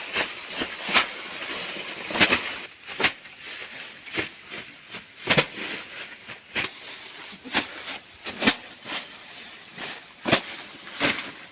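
Rice harvesting work: about a dozen sharp, irregular snaps, roughly one a second, over the rustle of dry rice straw.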